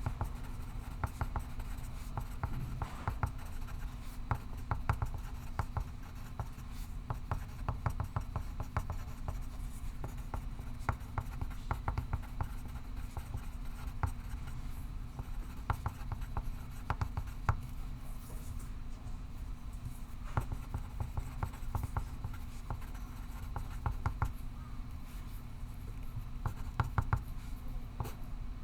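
Pencil writing on paper: a continuous run of short, irregular scratching strokes, over a steady low hum.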